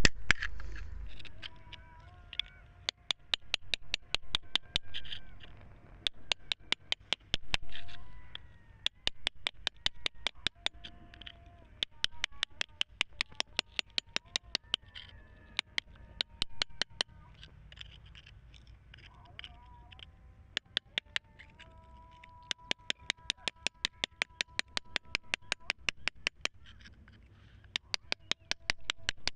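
A metal chisel tip tapping and picking at rock in quick runs of sharp ticks, several a second, with short pauses between the runs. Faint held tones sound underneath at times.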